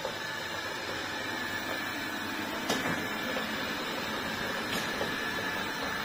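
ILIFE T20s robot vacuum-mop running as it mops a tile floor: a steady fan and brush hum with a faint high whine, and a light click about two and a half seconds in.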